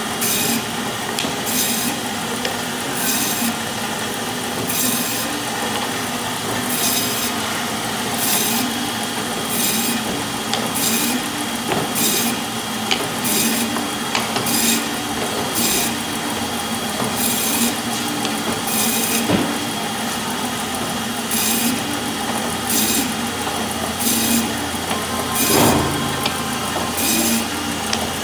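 Meat band saw running steadily while slicing a log of ground beef into patties. Each pass through the meat adds a short hiss, roughly once a second.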